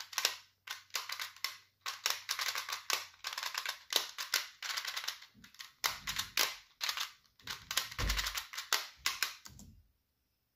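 Rubik's Clock puzzle being worked fast by hand: a rapid, dense run of sharp clicks from its dials being turned and its pins being pushed, with a few duller knocks in the second half. The clicking stops near the end.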